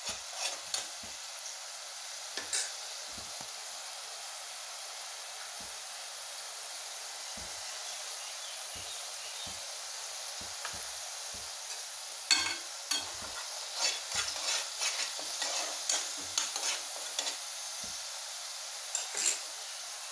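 Food frying in a pan with a steady sizzle, while a utensil is stirred and scraped against the pan in short strokes, most busily in the second half.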